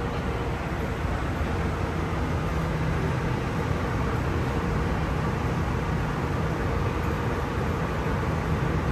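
MRT train running, heard from inside the car: a steady rumble and rolling noise with a faint steady hum.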